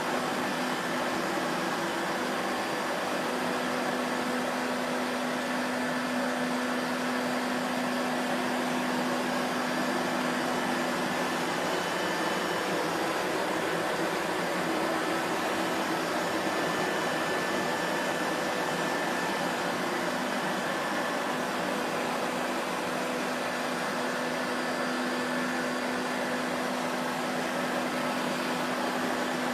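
Vacuum cleaner motor running steadily: a dense, even whooshing hiss with a faint hum whose pitch fades out partway through and comes back near the end.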